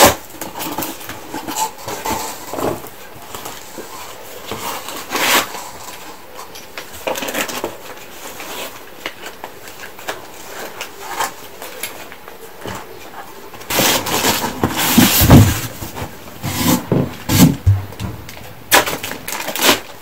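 Cardboard box and packaging being handled: scattered rustles, scrapes and small knocks, with a louder spell of rustling and knocks from about fourteen seconds in.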